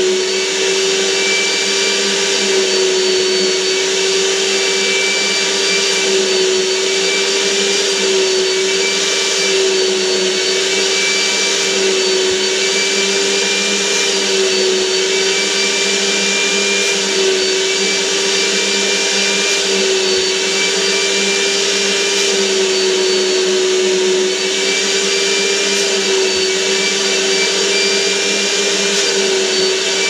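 Canister vacuum cleaner running steadily as its wand nozzle is worked over fabric sofa upholstery: a constant motor whine that wavers slightly in pitch.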